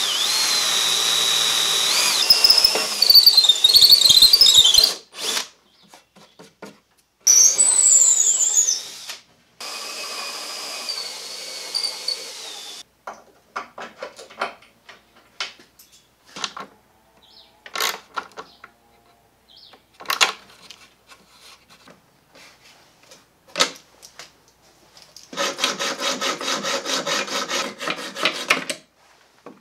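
A power drill runs twice, boring a bolt hole through a wooden pivot pin and link, its high whine shifting in pitch as the bit cuts. Scattered clicks and knocks follow as the parts are fitted, and near the end a hacksaw saws at a bolt with rhythmic strokes for a few seconds.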